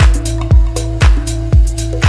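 Upbeat electronic background music, with a kick drum on a steady beat of about two a second, a sustained bass and crisp hi-hats over a few held synth notes.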